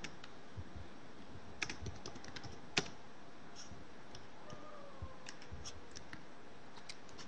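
Computer keyboard keys clicking in slow, irregular keystrokes as a command is typed, with one louder keystroke about three seconds in.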